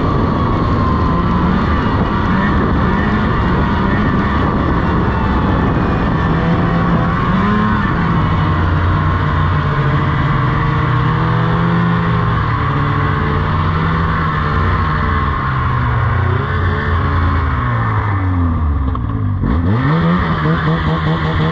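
2001 Polaris RMK 700 snowmobile's two-stroke engine, which has no power valves, running hard under throttle, its pitch wavering up and down. Near the end the revs drop sharply as the throttle is let off, then climb back up.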